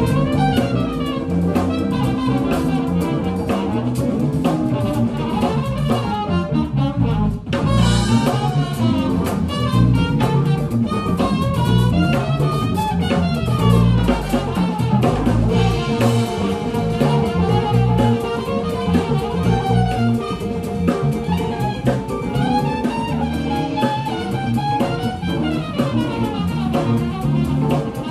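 A live jazz combo plays a groove, with a drum kit keeping a steady beat and guitar chords underneath a wavering lead melody line.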